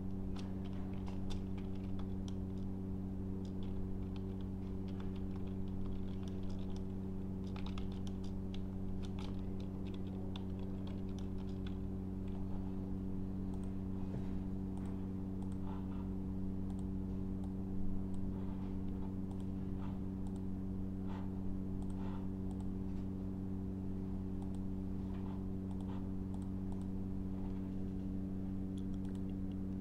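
Computer keyboard typing and mouse clicks: scattered keystrokes, with a quicker run of typing about a third of the way in, over a steady low hum.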